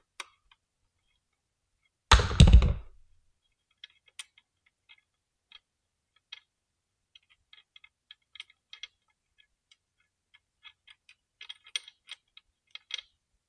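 One loud clunk about two seconds in, then a run of small irregular metallic clicks and ticks that grow more frequent near the end: hand-tool work on the 4 mm bolt of the retaining piece that holds an e-bike's rear wheel to the frame.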